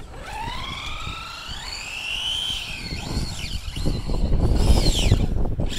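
Traxxas Slash 4x4 RC truck's electric motor and drivetrain whining as it accelerates, the pitch climbing steadily, then rising and falling again near the end, over tyre noise on wet asphalt. The owner takes the noise for a motor that needs realigning.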